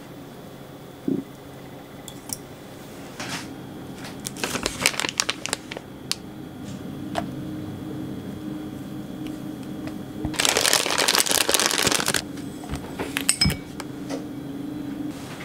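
Plastic piping bag rustling and crinkling as it is handled and filled with batter, with scattered taps and clicks; the loudest stretch is a dense crinkling burst of about a second and a half, some ten seconds in. A steady low hum runs underneath.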